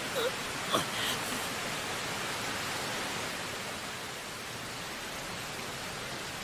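Steady hiss of heavy rain falling, with a few brief faint sounds in the first second.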